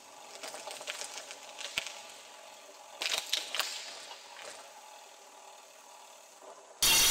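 Faint, scattered clicks and crackles in a quiet, empty space, in two clusters in the first half. Near the end a sudden loud burst of noise cuts in.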